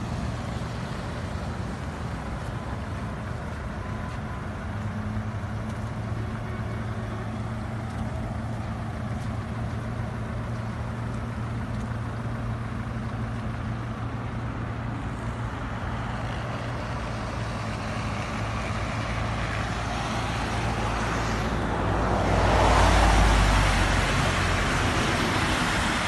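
A car's engine hum and road noise mixed with the steady rush of floodwater. The noise swells for a few seconds near the end.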